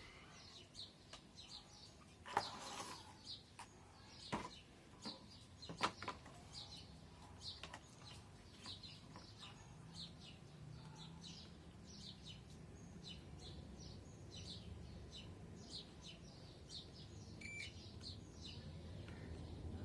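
Small birds chirping faintly in the background, many short high chirps throughout. A few sharp clicks in the first six seconds and a brief beep about three-quarters through.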